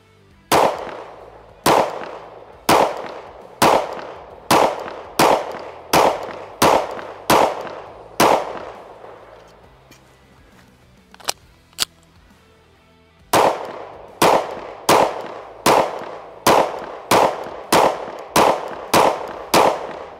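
Springfield Armory Prodigy 9mm pistol firing two strings of about ten shots each, at roughly one shot a second, each shot trailing off in a short echo. The strings are split by a pause of about five seconds with two sharp clicks in it, and the second string is slightly faster.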